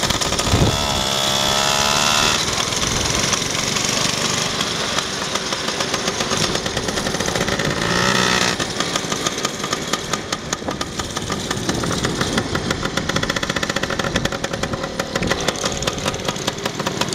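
Yamaha KT100 two-stroke go-kart engine, its pitch rising and falling as it revs through the first part, then running at lower revs with a rapid even beat in the second half.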